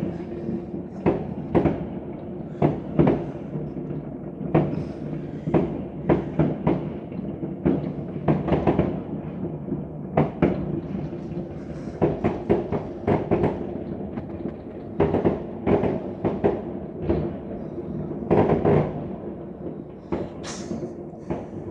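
New Year's fireworks and firecrackers going off all around: a long run of irregular sharp bangs, sometimes several in quick succession, over a continuous rumble of more distant explosions.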